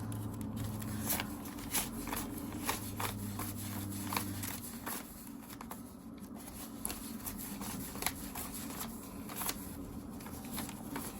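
Paper banknotes and cash envelopes being handled: irregular crisp flicks and rustles as bills are counted and tucked away. A low steady hum sits underneath and stops about halfway through.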